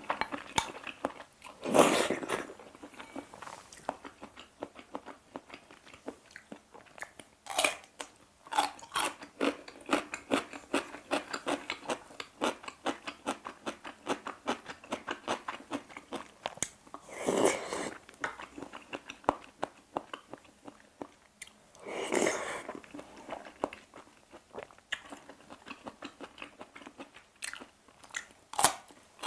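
Close-miked eating sounds: wet chewing of seafood aglio olio noodles with many small mouth clicks, and crunching bites of chonggak (ponytail radish) kimchi. Three louder, longer moments stand out, about two seconds in, around the middle and a little after.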